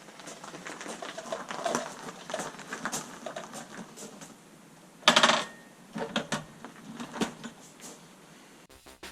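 Light metallic clinks and taps of tools and parts being handled in a workshop, with one louder, brief metal clatter about five seconds in.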